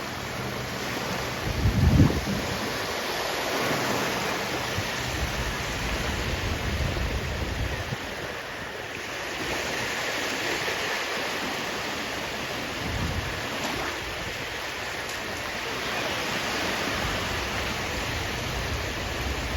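Sea waves washing on the shore, a steady rush that swells and eases every several seconds. A low rumble of wind on the microphone about two seconds in.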